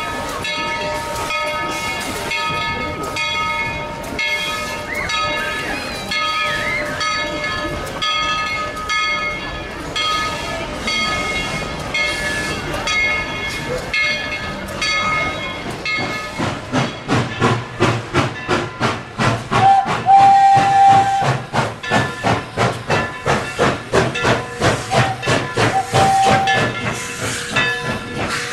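Tweetsie Railroad steam locomotive passing: steam hissing at first, then from about halfway its exhaust chuffs in an even beat of two or three a second over a low rumble. A whistle sounds briefly twice in the second half.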